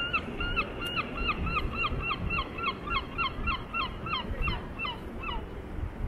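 A gull calling: a long run of short, evenly repeated notes, about four a second, stopping about five seconds in.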